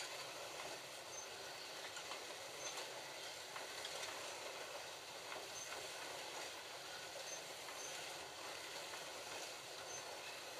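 Several Slot.it Ford GT40 slot cars running round the track together: a steady whir of small electric motors and the rattle of the cars in their slots, with short high beeps now and then.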